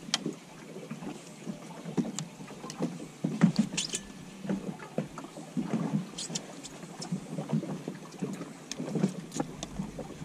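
Small waves slapping irregularly against the hull of a drifting fishing boat, with wind on the microphone and a few sharp clicks and knocks.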